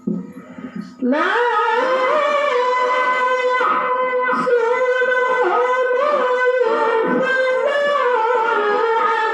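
A male qori reciting the Quran in the melodic tilawah style: about a second in, his voice glides up into a long, high held line with ornamented turns and wavering melismas.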